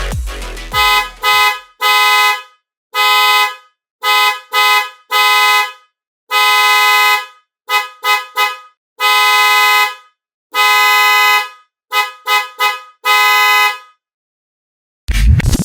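Duromoto DM01 dual-tone snail horn (12 V, 400 Hz low and 500 Hz high tones) sounding in a series of loud blasts, some long and held, others short in quick runs of two or three. A brief scraping noise follows near the end.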